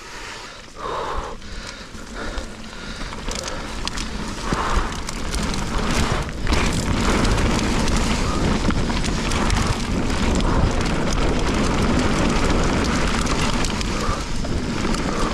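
Mountain bike descending a rough, muddy trail: tyres and frame rattling over rock and mud, mixed with wind rushing over the camera microphone, growing louder over the first several seconds as speed builds, then staying loud.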